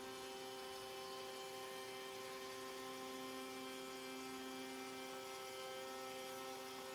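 Router spindle of a Maslow CNC machine running, a steady hum made of several unchanging tones.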